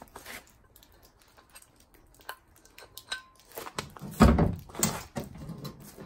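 Metal bar of a Bird Hitch being handled at a truck tailgate. A few light clicks and rustles, then two loud knocks about four and five seconds in as the bar bumps against the truck bed.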